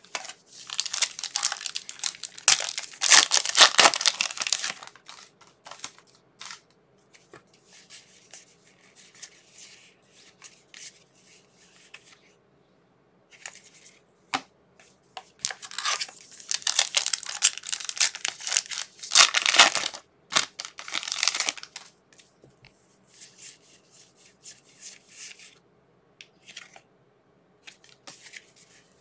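Trading card pack wrappers being torn open and crinkled, in two long bouts of tearing and rustling with quieter card handling in between.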